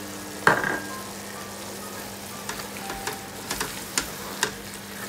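Spinach and chicken curry (chicken palak) sizzling in an open pan. About half a second in there is one sharp knock as the small glass bowl of ground nutmeg is tipped and tapped against the pan, followed later by scattered sharp pops and spits from the frying.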